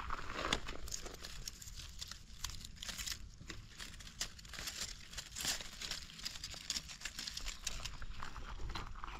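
Dry leaf litter and brittle stems crackling and rustling under a hand picking young wild pak wan (Melientha suavis) shoots, with irregular crisp snaps and clicks.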